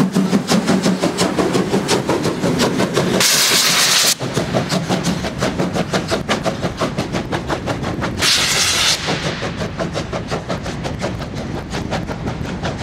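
Steam locomotive under way with a freight train: rapid, even exhaust chuffs, broken twice by short bursts of loud steam hiss.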